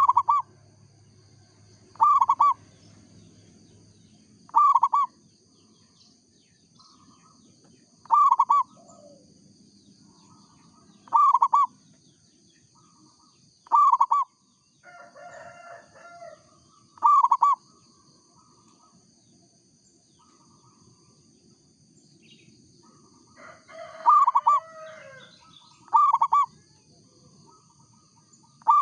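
Zebra dove (perkutut, local strain) cooing: a short, loud burst of quick coo notes repeated about every two to three seconds, with a longer pause past the middle. Another bird twitters faintly twice between the calls, over a steady high hiss.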